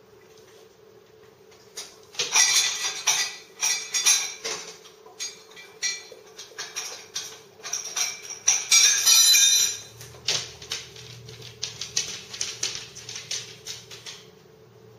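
A dog up on a kitchen counter rummaging at the sink, making a long run of irregular clinking, rattling and rustling among the dishes and things there. The sound stops as the dog gets back down.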